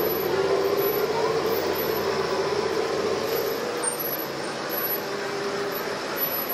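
Motorcycle engine running at a steady low speed, slowly fading.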